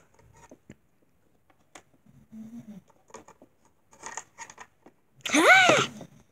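Small plastic dolls and toy furniture handled on a tabletop: light clicks, taps and scrapes. Near the end comes a loud, short wordless voice cry that rises and then falls in pitch.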